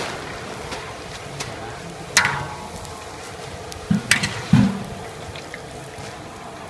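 Hot oil sizzling steadily as a nest of thin noodles deep-fries in a metal wok. A wire spider strainer clinks sharply against the wok about two seconds in and again around four seconds, with a couple of dull knocks near the second clink.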